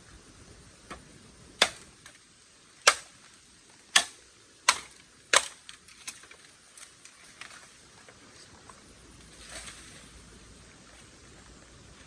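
A series of sharp knocks or snaps: five loud ones about a second apart, coming a little faster toward the end, then a few fainter ticks.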